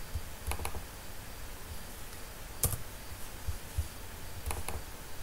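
Computer mouse clicking: a quick double click about half a second in, a single sharper click near the middle, and another double click near the end.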